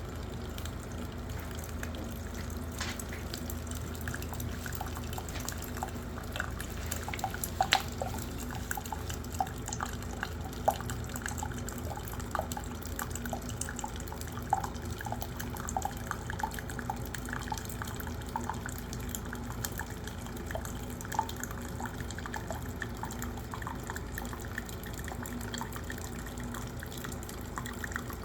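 Water running steadily, with many small irregular drips and splashes.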